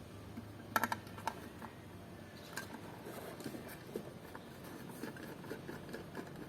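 Irregular light clicks and taps from hands handling small parts, with a quick cluster of several about a second in and scattered softer ones after.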